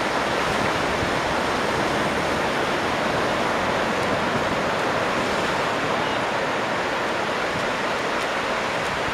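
Ocean surf breaking and washing in, an even, unbroken hiss of water.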